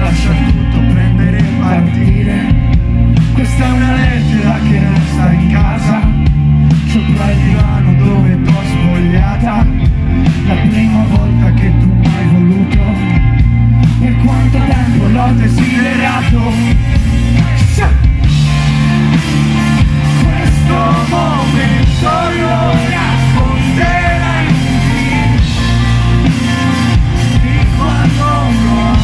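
Indie rock band playing live: drums, electric guitars and bass with the lead vocalist singing over them, the voice coming through most plainly in the second half.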